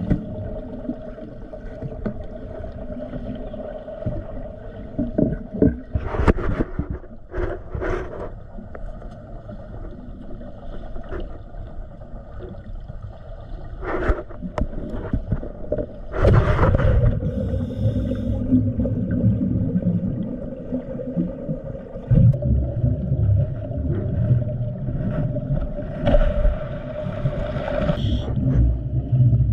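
Underwater breathing of a diver on a regulator: a steady low rumble and faint hum, broken a few times by loud rushing bursts of exhaled bubbles.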